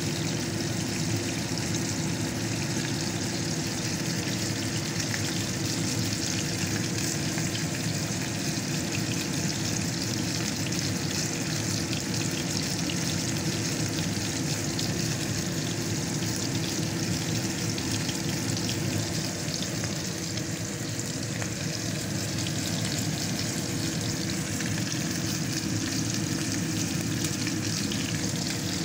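Steak sizzling steadily in a hot frying pan, a dense crackling hiss of searing meat, with a steady low hum underneath.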